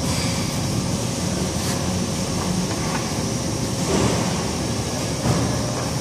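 Steady mechanical drone of a large auto service shop, ventilation and machinery hum, with a few faint knocks around the middle and near the end.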